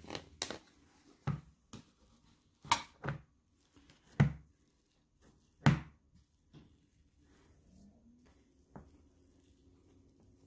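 Slime being handled and played with: a series of separate sharp pops and clicks, mostly in the first six seconds, then quieter with one more click near the end.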